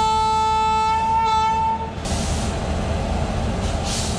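Train horn holding one long steady note that cuts off about two seconds in, followed by a low, even rumble of rail noise.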